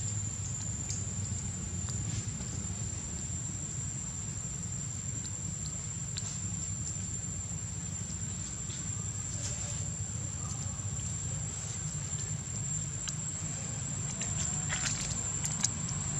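Steady outdoor ambience: a constant high-pitched insect drone over a low rumble, with a few faint ticks near the end.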